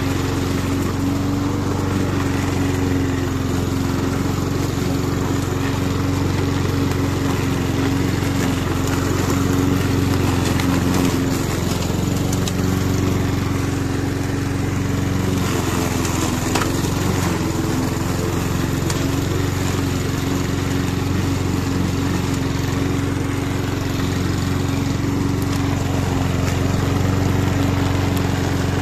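Petrol roller lawn mower engine running steadily under load, its pitch wavering briefly about halfway through.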